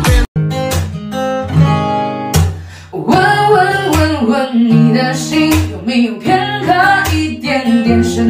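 Background pop song with strummed acoustic guitar, starting just after an abrupt cut from a different track; a voice starts singing about three seconds in.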